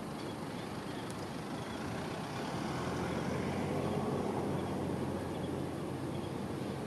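Steady engine noise of a passing motor vehicle, growing louder about halfway through and easing off again near the end.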